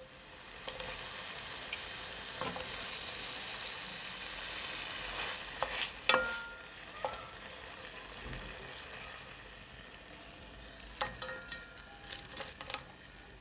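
Sauce of onion, garlic and beef stock sizzling in a skillet as it cooks down to thicken, with a utensil now and then clicking and scraping against the pan; one knock about six seconds in rings briefly. The sizzle gets quieter after about six seconds.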